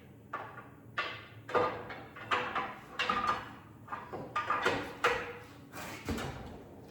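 An irregular series of short metallic scrapes and clunks, roughly one or two a second, as the engine hanging on the hoist is shifted and worked down toward its mounts.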